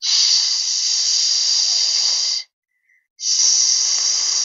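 Two long, steady "shhh" hisses made by a person imitating a snake's hiss, each about two seconds long, with a short pause between.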